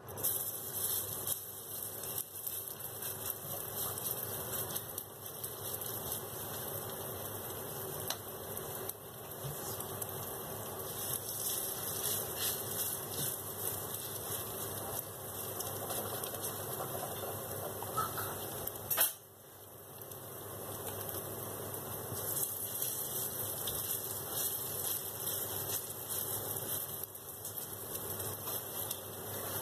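Minced beef fritters sizzling and crackling in hot oil in a stainless steel frying pan. The sizzle drops out briefly about two-thirds of the way through.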